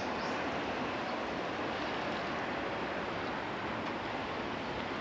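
Steady outdoor rushing noise with no distinct event, with a few faint high chirps near the start.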